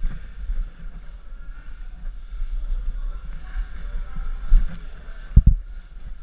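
Muffled low rumble of a helmet-mounted GoPro Hero3+ in its waterproof housing as the caver moves through a rock passage. Two short thumps come near the end, about four and a half and five and a half seconds in, as the camera or gear knocks about.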